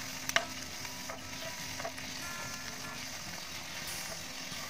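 Evaporated-milk sauce sizzling and bubbling in a nonstick frying pan as a nylon ladle stirs it, with one sharp knock of the ladle against the pan shortly after the start and a few faint scrapes after.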